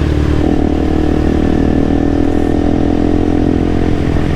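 KTM single-cylinder motorcycle engine running at a steady cruise, heard from the rider's position with wind noise over the mic.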